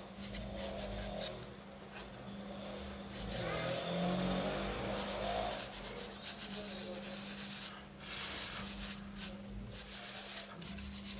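A brush scrubbing a laptop motherboard: light, irregular scratching strokes as dust is cleaned off the board, with a steady low hum underneath.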